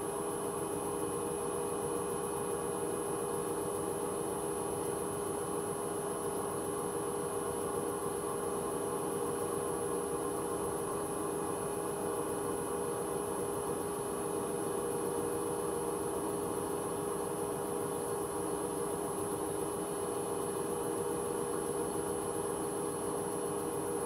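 Hoover H-Wash 300 Plus washing machine spinning its empty drum at a steady 600 rpm: an even hum with a thin high-pitched whine over it. The owner suspects the drum bearings may be starting to go.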